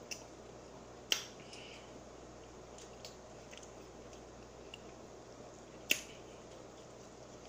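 Faint chewing and handling noises, with two sharp clicks, one about a second in and one near six seconds in.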